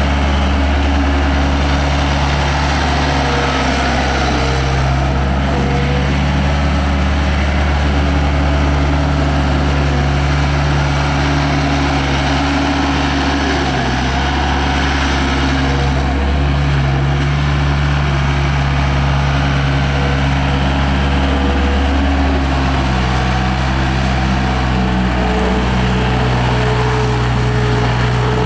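Cummins 4B naturally aspirated four-cylinder diesel of a Case 40XT skid steer loader running steadily, its note stepping up and down a few times as engine speed or load changes.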